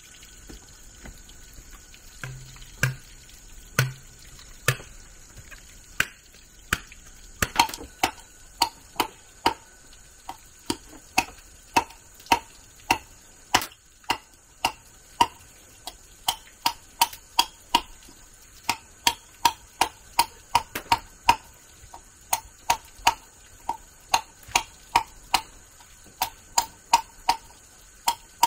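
A tool striking repeatedly: a few scattered sharp knocks, then a steady run of sharp strikes about two a second, each with a brief ring.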